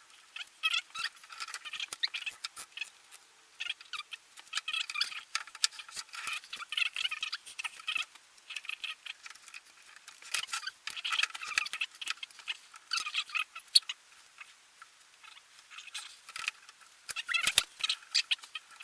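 Sped-up, time-lapse workshop audio: high-pitched, chipmunk-like chatter in quick, uneven clusters, with small clicks and knocks.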